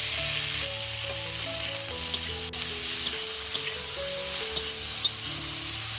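Chopped vegetables with freshly added peas and tomato sizzling as they fry in oil in a metal wok, with a metal spatula stirring and now and then clicking against the pan. Background music with held notes plays underneath.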